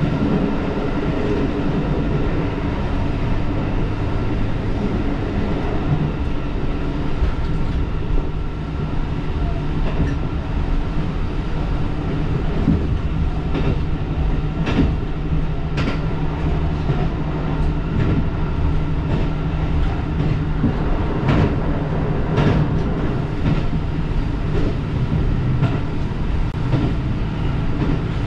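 Diesel railcar running along the line: a steady engine drone under rolling wheel noise. Sharp wheel clicks over rail joints come at uneven intervals, mostly in the second half.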